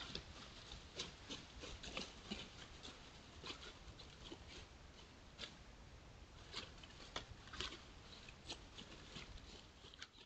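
Coyotes walking and foraging in dry fallen leaves: irregular soft crackling and rustling footsteps over a steady low hiss.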